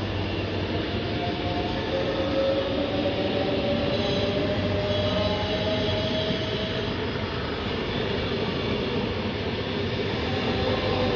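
Frecciabianca electric train moving slowly past along the platform track: a steady rumble of wheels on rails, with a faint electric whine that slowly rises in pitch.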